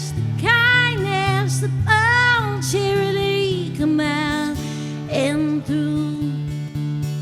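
A woman singing long, wavering notes without clear words over a strummed acoustic guitar. The voice stops near the end, leaving the guitar playing alone.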